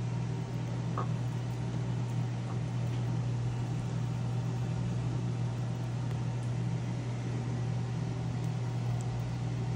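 Kitchen exhaust fan running with a steady hum, switched on to clear smoke from toasting tortillas in oil.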